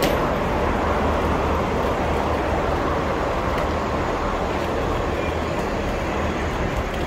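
Steady low rumble of idling shuttle buses, easing off slightly.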